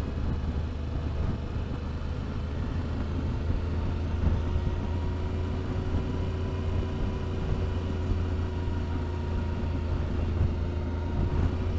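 Yamaha Ténéré 700's stock parallel-twin engine running steadily in second gear off the throttle, engine braking down a steep descent.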